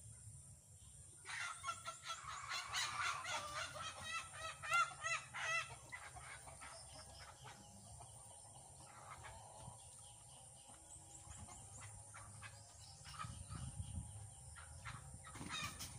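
Chickens squawking in a loud, rapid burst of calls starting about a second in and lasting around five seconds, then dying down to a few faint calls: a commotion the speaker puts down to chickens fighting.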